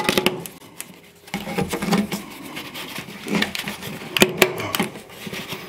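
Corrugated plastic drain hose being fed by hand through a hole in a greenhouse wall panel: irregular plastic scraping, rustling and clicks, with a few sharper clicks later on.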